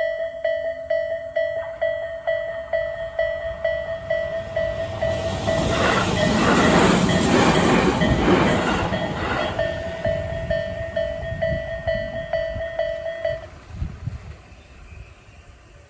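Japanese railway level-crossing warning bell of the Isesaki type, an electronic ding repeating about two and a half times a second. A Tobu Nikko Line train runs through the crossing from about five seconds in, loudest for a few seconds and drowning the bell. The bell stops a little after 13 seconds.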